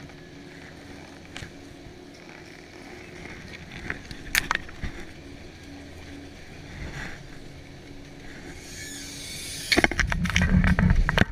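Chairlift loading station: the lift machinery hums steadily, with a few sharp clicks. Near the end a loud rumble with clicks comes as a chair swings in over the camera and is boarded.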